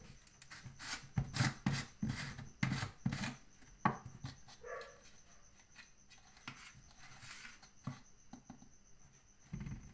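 Plastic tub of protein gainer powder being handled: the lid taken off and the scoop worked in the tub. A quick run of knocks and clatters comes in the first four seconds, then sparser scraping and taps.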